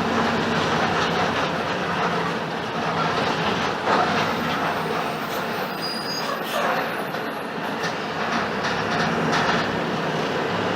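Mercedes-Benz OF-1721 BlueTec 5 bus diesel engine running while the bus drives, with road noise and body rattles. The engine hum eases in the middle and picks up again near the end.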